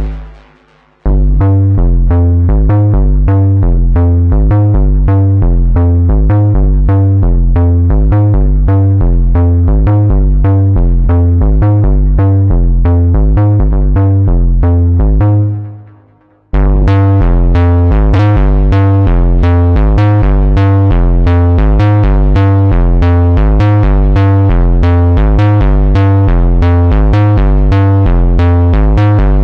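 Moog Subsequent 25 analog synthesizer playing a quick, repeating bright bass pattern. The pattern fades out and starts again about a second in, and again about halfway through, sounding brighter after the second restart.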